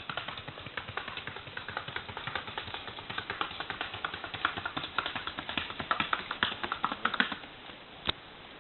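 Rapid, evenly spaced hoofbeats of a Paso Fino horse in its quick four-beat gait, stopping abruptly about seven seconds in.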